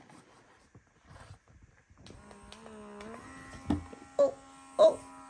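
Small electric earwax removal vacuum switched on about two seconds in: a steady buzzing motor hum that dips and then steps up to a higher pitch. Three short, loud sharp sounds break in near the end.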